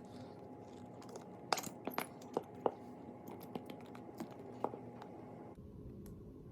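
Scattered light clicks and taps of small plastic kit containers and utensils being handled on a tabletop, over a faint steady hum.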